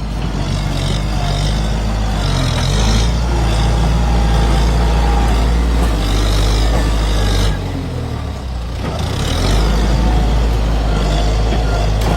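Kubota M7040SU tractor's diesel engine running steadily under load. About seven and a half seconds in the engine note drops suddenly, then rises back up about two seconds later.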